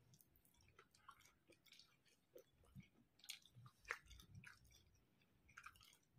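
Quiet, close-up chewing of a mouthful of rice and curry, with many short irregular mouth clicks, the sharpest about four seconds in.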